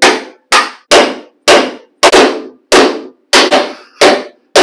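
A hammer strikes a steel punch about two times a second, each blow a sharp ringing clang, driving the factory rivets out of a steel frame bracket.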